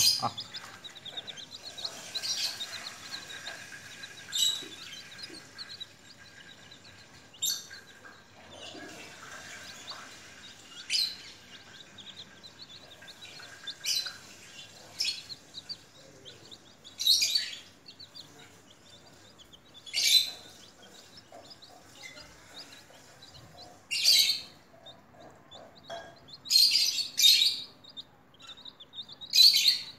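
Baby chicks peeping: short, high-pitched peeps that come every second or few, several times in close succession near the end.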